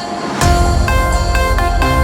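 Electronic background music. A heavy bass beat drops in about half a second in.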